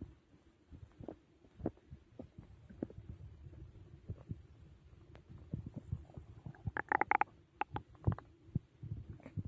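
Close-miked human stomach growling and gurgling from digestion after a big meal: a run of short, irregular low gurgles, with a louder, squeaky high-pitched gurgle about seven seconds in.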